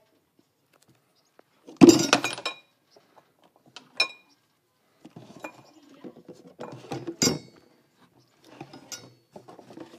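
Wire bird cage clinking and rattling as serins hop and flutter about inside it: a loud rattling clatter about two seconds in, sharp single clinks near four and seven seconds, and lighter scattered taps in between.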